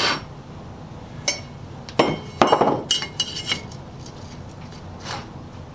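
A steel combination square and scriber clink and knock against steel box beam and plate as they are set in place on a workbench for marking out. There are a handful of separate clinks, the loudest about two seconds in, and one near three seconds rings briefly.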